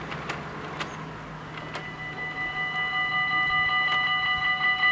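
Level-crossing warning bells start ringing about two seconds in and grow louder, a rapid, even ringing that signals the barriers are about to come down for an approaching train.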